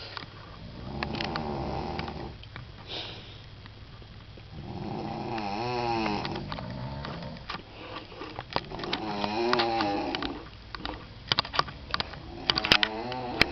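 Elderly woman snoring loudly in her sleep: long rattling snores with a wavering pitch, one about every four seconds, with a few sharp clicks near the end.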